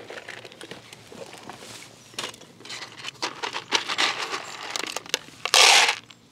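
Rustling and crinkling of bait packaging, with scattered small clicks and knocks, as hard 8mm fishing pellets are fetched from a tackle side tray. One loud burst of rustling noise lasts about half a second near the end.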